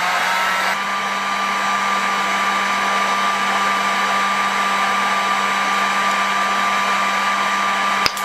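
Heat gun running steadily, a constant blowing hiss over a motor hum and a high whine, with a short click near the end.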